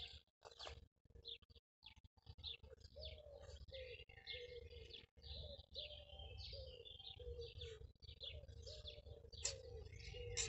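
Small birds chirping and singing. From about three seconds in, a low call repeats roughly twice a second.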